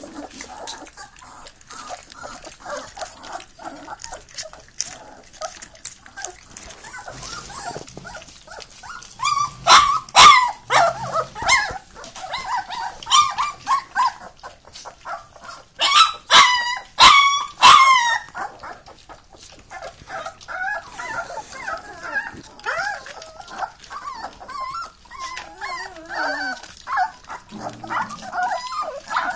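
Three-week-old Fila Brasileiro puppies whining and yelping in high, wavering cries, with loud sharp yelps about ten seconds in and again in a quick run a few seconds later. Under the cries come the wet smacking and clicking of puppies eating raw minced meat.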